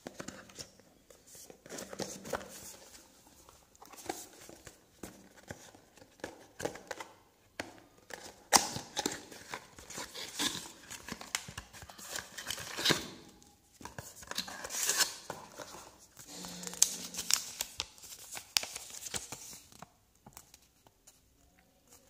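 Cardboard box and paper leaflets being handled by hand: irregular scraping, rustling and crinkling of card and paper as the box is searched and papers are pulled out. The handling is busiest in the middle stretch and dies away near the end.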